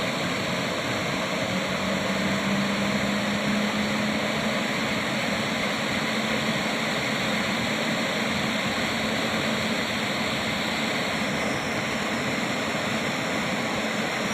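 WAG9 electric locomotive starting up: a steady rushing, fan-like noise with a faint low hum through the first few seconds.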